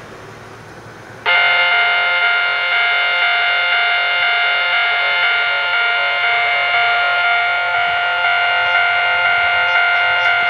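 Railway level-crossing warning bell starting suddenly about a second in, then ringing steadily in a fast, even repeating clang.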